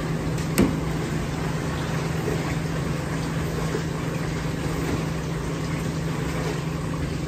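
A steady machine hum with a low steady tone, broken once by a sharp knock about half a second in.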